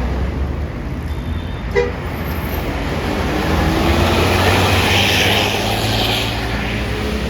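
Heavy diesel bus engine running as it passes close by, growing louder from about three seconds in and easing off near the end, with a short click a little under two seconds in.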